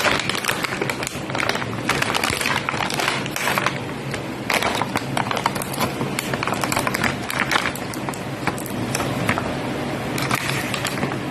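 Packaging being handled during a toy unboxing: irregular crinkling and clicking of plastic and cardboard, over a steady low hum.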